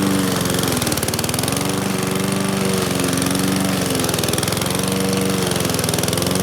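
Powersmart gas push mower's engine running under heavy load in tall, wet grass, its pitch dipping briefly a few times as it bogs down and then picks back up. The mower is struggling and near stalling because the deck keeps getting clogged.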